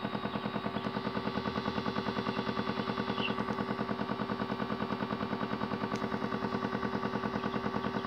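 Modified Miele W1 toy washing machine spinning an unbalanced load of water and a cloth. The drum knocks and rattles in a fast, even rhythm over a steady motor whine.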